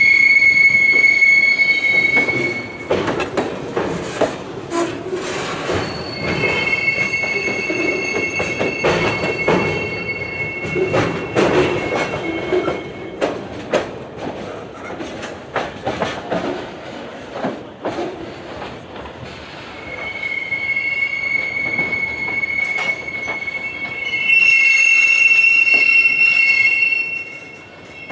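Steel wheels of freight cars rolling through a hump classification yard, squealing high and steady against the rails in long stretches: loudest at the start and again near the end. In between come clanks and clicks of wheels passing over rail joints and switches.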